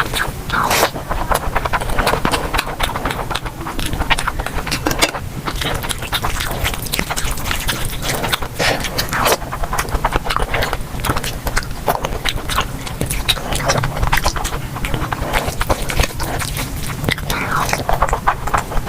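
A person eating close to the microphone: chewing and biting, with a dense run of quick mouth clicks and smacks.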